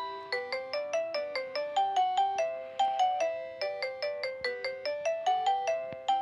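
A Philips X100 ringtone playing through a Nokia 5130 XpressMusic phone's loudspeaker: a quick, repeating melody of short struck notes, several a second, each dying away.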